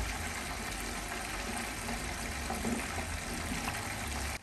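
Sweet-and-sour sauce thickened with cornstarch simmering in a pot while being stirred with a silicone spatula: a steady hiss with a low rumble underneath.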